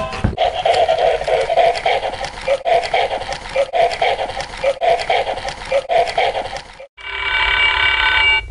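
A battery-powered plush dinosaur toy plays an electronic sound through its small speaker: a pulsing, repeating pattern with a sharp click about once a second. Near the end it cuts off, and an electronic alphabet learning toy starts a steady run of electronic tones.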